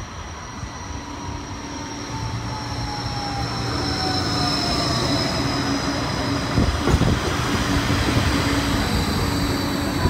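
Bombardier Flexity 2 light-rail tram pulling into a platform. Its electric drive whine falls slowly in pitch as it brakes, over a steady low hum, and the tram grows louder as it approaches.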